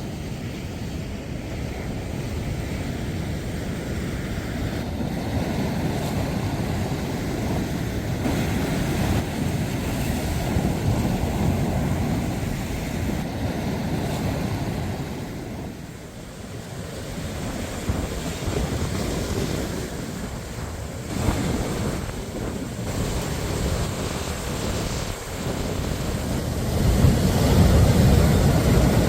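Sea waves washing and breaking on the shore in swells that rise and fall, with wind buffeting the microphone; the surf grows louder near the end.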